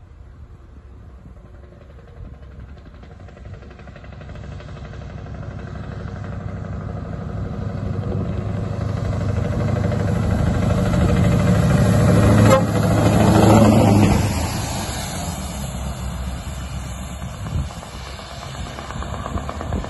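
Cattle lorry's diesel engine and tyres on a wet road: the low engine hum and tyre hiss grow steadily as it approaches, peak as it passes close by about two-thirds of the way through, then fade as it drives away.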